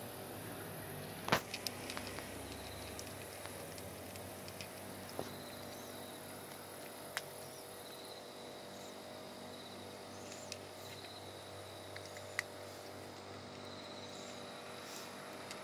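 Insects chirping in a steady, high, repeating trill, with a few sharp clicks scattered through it, the loudest about a second in.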